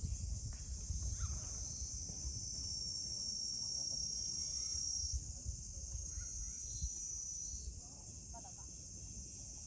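Steady, high-pitched chorus of insects, with an uneven low rumble underneath.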